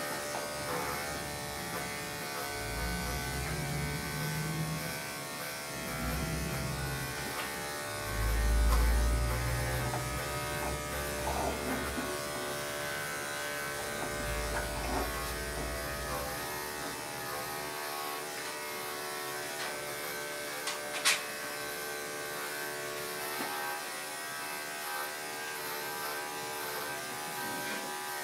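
Electric dog grooming clippers running steadily while shaving a dog's body coat, a constant buzz. Several low rumbles come and go in the first half, the loudest about nine seconds in, and a single sharp click sounds about 21 seconds in.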